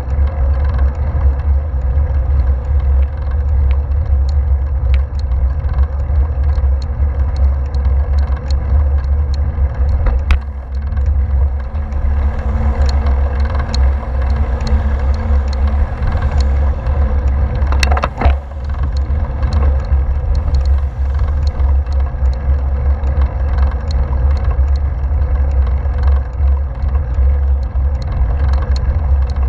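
Steady wind rumble and tyre noise on a bicycle-mounted action camera riding on asphalt. A car's engine hum joins around the middle as a car passes and drives on ahead. A sharp knock comes about 18 seconds in.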